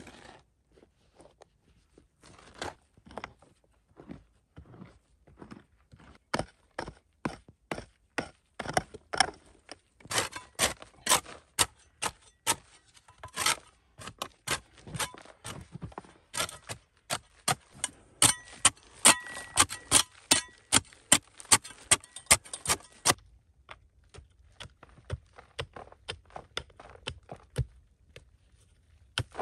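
A fast, irregular run of sharp hand-tool strikes, a few per second, sparse at first, then thick and loud through the middle before thinning out, with a faint metallic ring among the louder blows.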